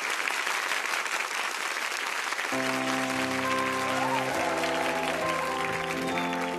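Studio audience applauding. About two and a half seconds in, a live band comes in over the clapping with sustained held chords, the opening of a song.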